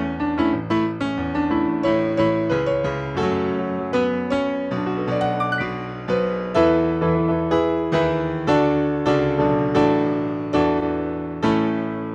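Solo piano playing a slow instrumental piece: melody notes over chords, each struck and left to ring out, several strikes a second.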